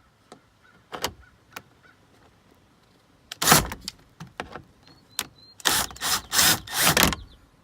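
A T20 Torx screw being backed out of plastic dash trim with a driver: a few light clicks as the bit seats, then short loud runs of the driver, one about three and a half seconds in and several in quick succession near the end.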